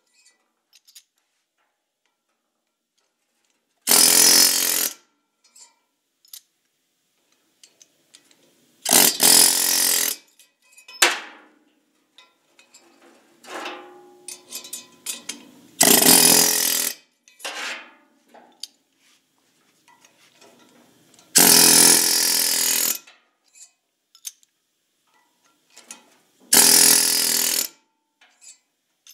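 Pneumatic air hammer firing in five bursts of one to two seconds each, driving a broach through the valve guides of a cast-iron big-block Chevy cylinder head to lock the guides in place. Quieter metal clinks and clatter between the bursts as the broach is caught and handled.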